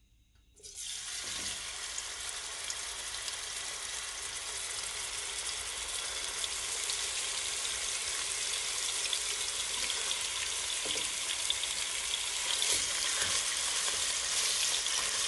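Ground beef frying in hot oil in a pan. The sizzle starts suddenly about half a second in, as the meat goes into the oil, and grows slightly louder.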